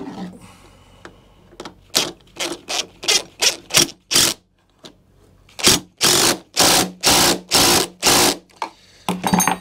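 DeWalt cordless impact driver run-down a bolt in short trigger pulls: about seven quick rattling blips, then six longer bursts, tightening the nut on a lawnmower's wheel bracket.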